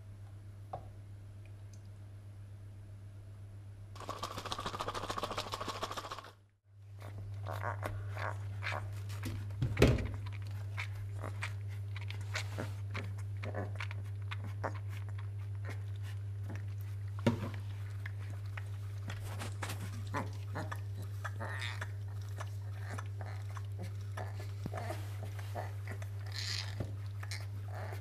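Newborn Bengal tiger cub suckling from a baby bottle: irregular wet smacking and clicking at the teat, with an occasional knock, over a steady low hum. A couple of seconds of hissing noise come about four seconds in.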